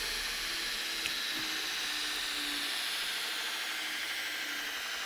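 Home-built surface belt grinder running, its 2 HP motor driving the abrasive belt at about 32 m/s, heard as a steady hiss. A small click sounds about a second in.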